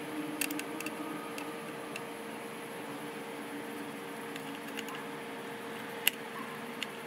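Steady electrical hum with a few light clicks in the first second or so and one sharper click about six seconds in.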